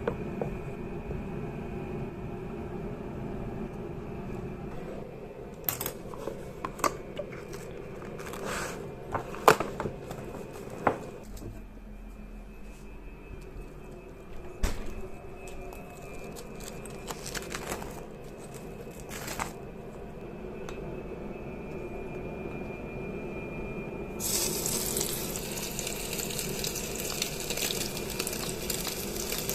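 Kitchen clatter of dishes and utensils over a steady hum, then about 24 seconds in a loud, lasting hiss starts: hot oil sizzling as pieces of seigo (young Japanese sea bass) fry for karaage.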